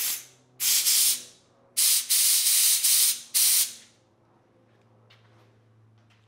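Compressed air from a handheld air blow gun, released in four short blasts over the first four seconds, the third one longest and pulsing, then stopping.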